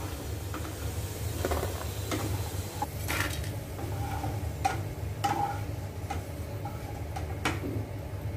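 Metal spatula and steel utensils knocking and scraping in scattered short clinks, a few of them with a brief ring, over a steady low hum.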